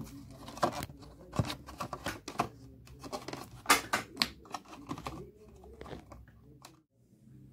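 Irregular plastic clicks and knocks as a dashboard air vent is handled and pushed into its opening in a plastic dashboard, going quiet shortly before the end.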